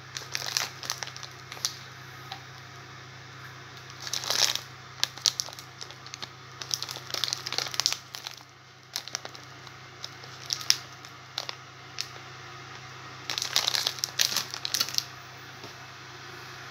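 Plastic biscuit-packet wrapper crinkling in about five irregular bursts as the packet is handled and lifted.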